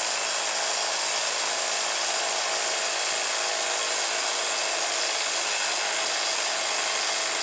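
Bosch PS82 12-volt brushless 3/8-inch impact wrench hammering steadily at full power against a wheel stud torqued to 90 ft-lb, without breaking it loose. The fastener is beyond the tool's 85 ft-lb rated maximum torque.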